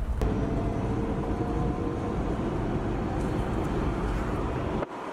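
A vehicle on the move: steady rumble of road and wind noise with a faint steady whine, cutting off abruptly near the end.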